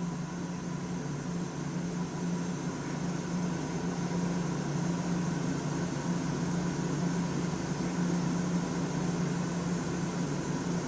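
2004 Daewoo DMV-3016 CNC vertical machining center running with its spindle turning slowly at 250 RPM: a steady, even machine hum.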